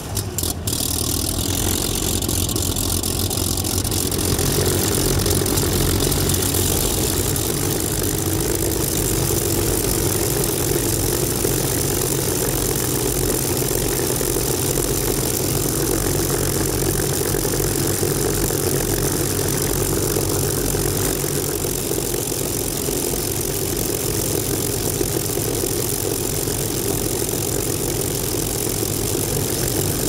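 Supermarine Spitfire's V12 piston engine idling on the ground, the propeller turning, a steady engine rumble that grows fuller about four seconds in.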